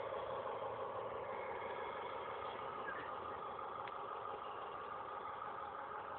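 Märklin gauge 1 model train running on metal garden track: a steady hum of its motor, gears and wheels, slowly getting quieter as the train moves away.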